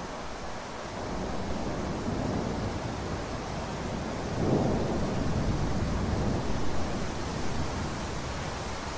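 Rain falling steadily, with a low roll of thunder that builds from about a second in, is loudest around the middle and fades away.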